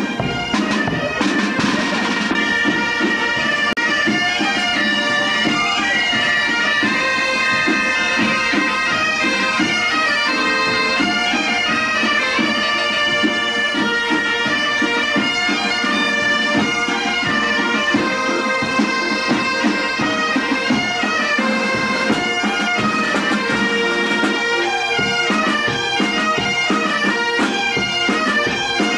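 A marching band of Asturian gaitas (bagpipes) playing a tune over a steady drone, with drums keeping the beat.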